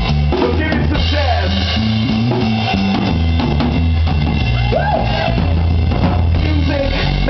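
Live band playing a hip-hop/funk groove: drum kit and a bass guitar line moving between held notes, with a few short vocal phrases over it.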